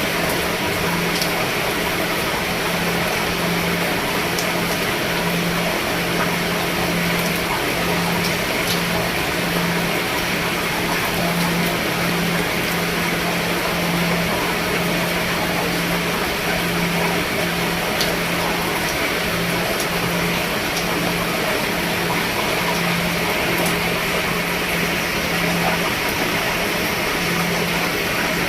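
Steady rain falling on a roof, with a few sharper drops now and then and a low hum that pulses on and off underneath.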